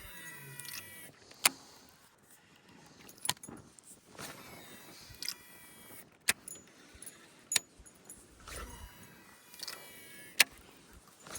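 Fishing reel being cast over and over: three times a thin whine falls in pitch as the spool pays out line, with sharp clicks and knocks of the reel and tackle in between.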